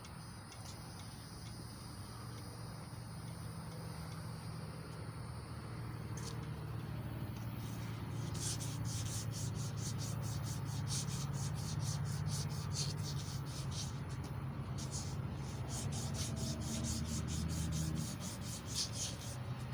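Emery cloth rubbing back and forth on a small block Chevy 350 crankshaft journal, polishing it. The sound grows louder, and from about halfway through it turns into quick, even strokes, a few a second.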